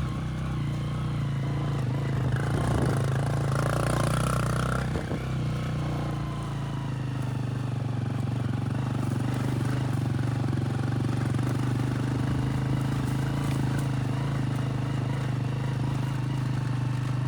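A motor vehicle's engine running at a steady speed while driving, with a brief rougher, noisier stretch a few seconds in.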